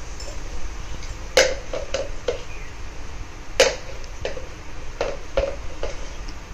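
Hot cooking oil with turmeric in an iron kadai, popping irregularly with sharp spits, two louder pops about a second and a half and three and a half seconds in, over a steady low rumble.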